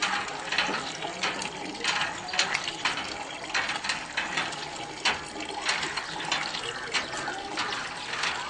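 Hand pump being worked by its lever, water gushing from the spout into a plastic bucket in surges, about one and a half a second, one with each stroke.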